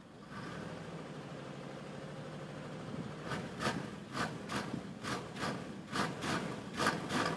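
1990 Cadillac DeVille's V8 running on a cold start, heard at the exhaust. The exhaust sound comes up about a third of a second in and runs steadily. From about three seconds in, short noisy bursts come in pairs roughly once a second over it.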